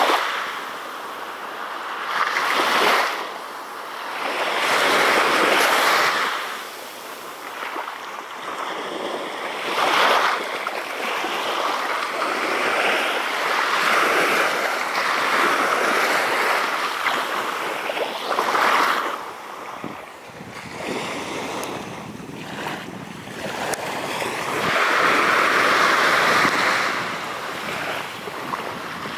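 Small sea waves washing up onto a sandy beach. Their hiss swells and fades unevenly every few seconds.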